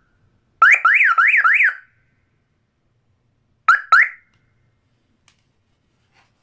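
Repaired electronic siren horn on a 12 V adaptor sounding in short bursts as its wire is touched to the plug: a warble sweeping up and down four times in about a second, cut off sharply, then two brief chirps about three and a half seconds later.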